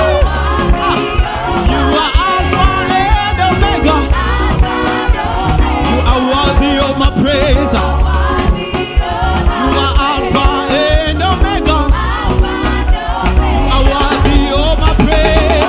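Upbeat gospel praise music: singing over a bass line and a fast, steady drum beat.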